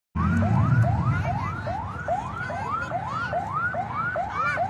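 Electronic siren in a fast yelp, a whoop that sweeps up and drops back about three times a second.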